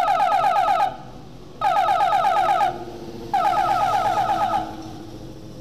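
An electronic warning signal sounds three times, each burst about a second of rapid, warbling pulses repeated about ten times a second, with short gaps between bursts.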